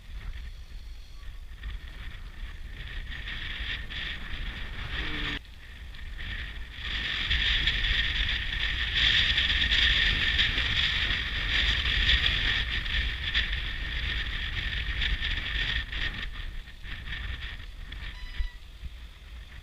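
Wind rumbling on a bicycle-mounted action camera's microphone while riding, with a steady high hiss that grows loudest around the middle and fades toward the end.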